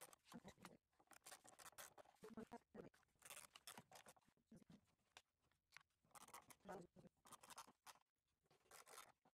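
Faint, irregular clicks and scratches of a hand screwdriver turning small hinge screws into a walnut box.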